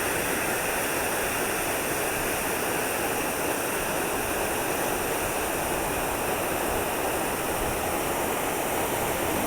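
Waterfall in spate after heavy rain, its water rushing in a steady, even roar.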